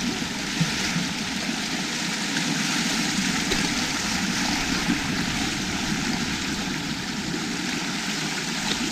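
Steady rushing of flowing water, an even noise with no rhythm or pitch.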